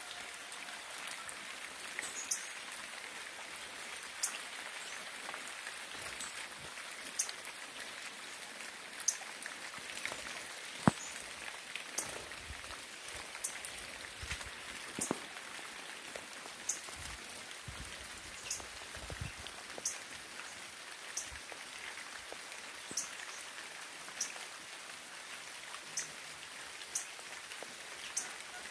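Steady rain, with single large drops striking a surface in distinct ticks about once a second; one drop about eleven seconds in is much louder than the rest.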